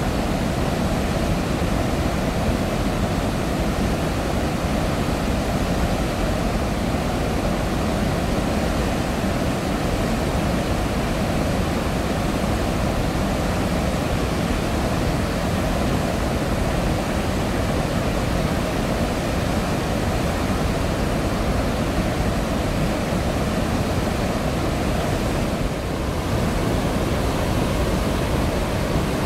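Roar of floodwater pouring through a dam's open spillway gates and churning downstream: a steady, deep rushing noise that barely changes, with only a brief small dip near the end.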